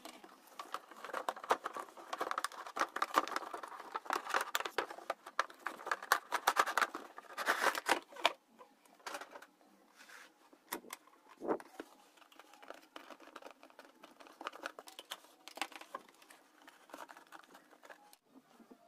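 Cardboard packaging being handled: irregular scraping, rustling and tapping of cardboard as a toy car's box is opened and its insert slid out. The handling is busiest for about the first eight seconds, then thins to scattered taps and rustles.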